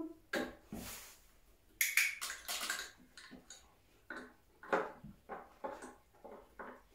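Dog nosing about inside a wooden search box: irregular knocks, clicks and rattles of wood and of the object in the box, thickest about two to three seconds in.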